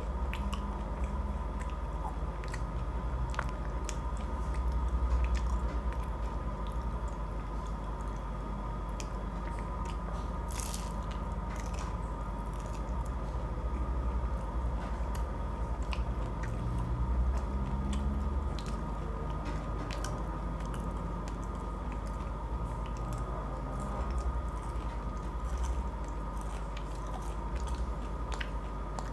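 A person biting and chewing a crunchy pie, close to the microphone: sharp crisp crunches of the pastry crust scattered over steady soft chewing of the sweet orange-and-custard filling.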